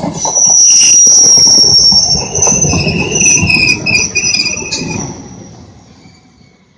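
Local passenger train braking as it comes in: a loud, high-pitched squeal from the wheels over a rumble. The squeal breaks up a few times and the noise dies away as the train comes to a stop about six seconds in.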